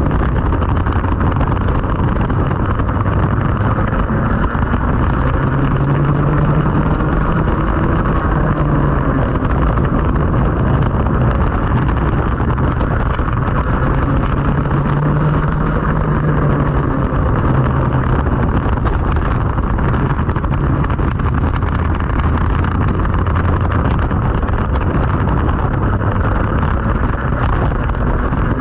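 Racing kart engine running hard, its note rising and falling over and over with throttle and speed through the corners, under steady wind noise on the onboard microphone.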